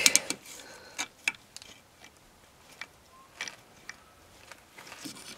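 A few scattered light clicks and taps of a metal caliper being slid open and closed onto a turned metal workpiece: a measurement of the diameter.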